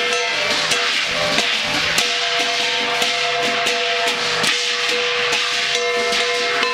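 Traditional Chinese drum and gong percussion playing a busy, even beat for a lion or qilin dance, with the gong's ringing tone held underneath the strikes.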